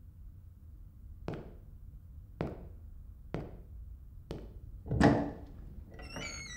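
Slow, heavy footsteps walking away, four steps about a second apart, then a louder thud about a second after the last. Faint high wavering tones come in near the end.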